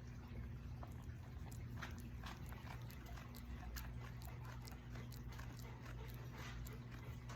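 Quiet room with a steady low electrical hum and many small scattered clicks and rustles.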